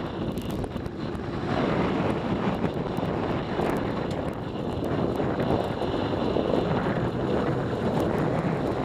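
Motorcycle riding off-road: the engine runs steadily under heavy wind noise on the microphone.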